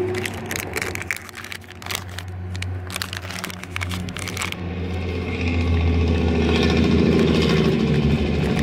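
Foil anti-static bags crinkling and crackling as they are handled and torn open. About halfway through, a vehicle engine starts to be heard running, growing steadily louder.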